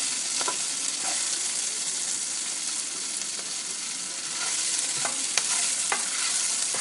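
Sliced onions sizzling steadily in hot oil in a metal pot while being stirred with a wooden spatula, which knocks against the pot a few times. The onions are being fried on a low flame.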